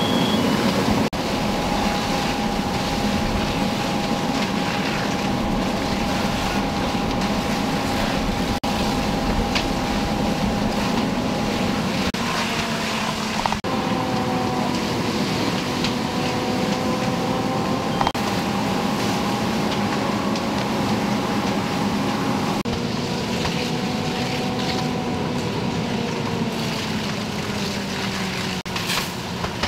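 A fire engine's engine running steadily at pumping speed to feed the hose lines, a constant droning hum, over the rushing hiss of hose streams and the burning fire.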